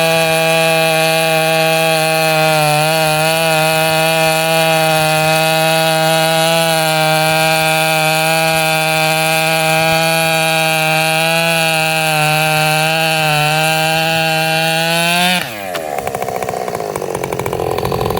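Ported Husqvarna 565 chainsaw with a holed, modified muffler running at full throttle under load, a steady high engine note with brief dips in speed, typical of sawing through wood. About fifteen seconds in the throttle is released and the engine speed drops sharply, then revs up and down unevenly.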